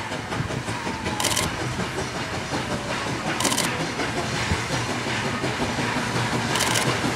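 SY-class 2-8-2 steam locomotive approaching slowly. It makes a steady rumble with a short hiss about every two seconds, growing a little louder.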